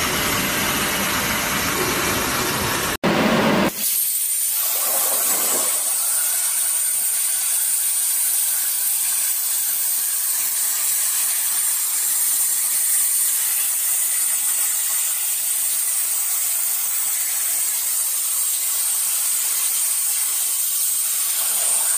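CNC plasma torch cutting steel plate: the plasma arc makes a steady loud hiss. About three seconds in the sound changes abruptly to a thinner, higher hiss with a steady high whine.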